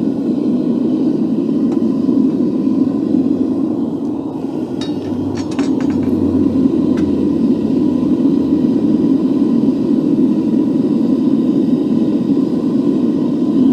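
Gas burner of a home-built forge running steadily in furnace mode, melting aluminium, with a low, even rush. A few light metallic clinks come about five seconds in.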